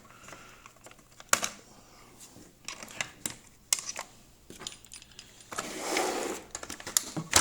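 Scattered small clicks and metal clinks of a screwdriver, bit and screw being handled during hand assembly, with a short rustling scrape about six seconds in.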